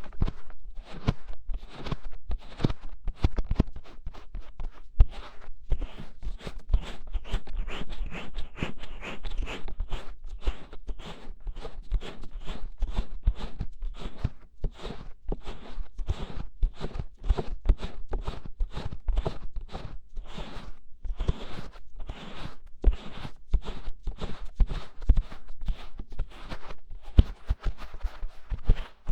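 Fingertips scratching and rubbing on the ears of a binaural ASMR microphone, with several rapid, uneven strokes a second and low muffled thumps as the mic ears are cupped and pressed.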